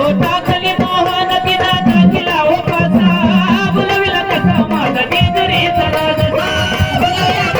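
Marathi gondhal devotional folk music playing: fast hand-drum strokes under a wavering melody line.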